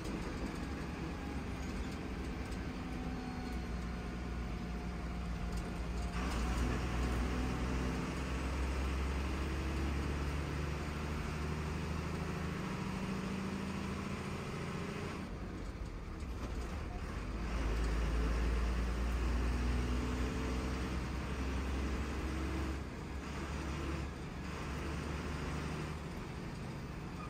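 KSRTC Minnal bus running on the highway, heard on board: a steady engine and road rumble, with the engine note rising and falling as the bus speeds up and eases off.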